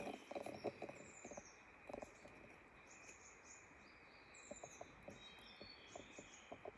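Quiet forest background: small birds repeating short, high calls that slide down in pitch, over a steady high drone and scattered faint ticks.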